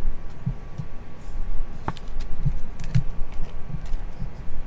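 Plastic card sleeves and rigid card holders handled and set on a tabletop: scattered soft knocks and a few sharp clicks, the sharpest about two seconds in.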